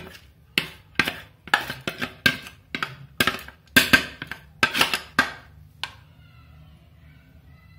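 A spatula knocking and scraping on a stainless steel perforated skimmer to shake cooked basmati rice off it into the pan: about a dozen sharp ringing taps, two or three a second, that stop about six seconds in.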